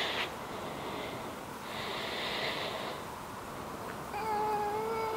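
A voice holding one steady, slightly falling note for about two seconds, starting about four seconds in, after a couple of soft hissy rustles.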